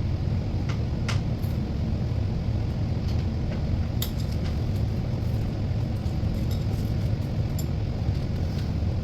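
A steady low rumble, with a few light clicks and clinks of small hardware being handled, one about a second in and another about four seconds in.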